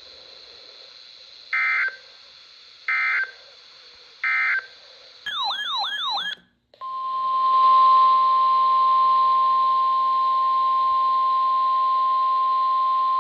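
Emergency Alert System tones: three short, identical bursts of SAME data tones about a second and a half apart, the end-of-message code closing the previous warning. Then a brief warbling sweep, and after a short gap a loud, steady single-pitch alert tone starts, the NOAA Weather Radio warning alarm tone that introduces the next alert.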